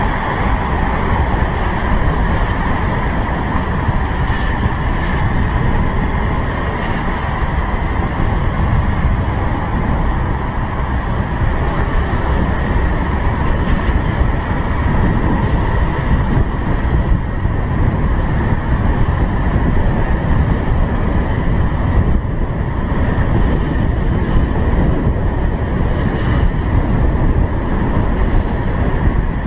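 Motor scooter riding along a road, heard from a helmet-mounted camera: a steady rush of wind on the microphone over the scooter's engine running at a steady speed.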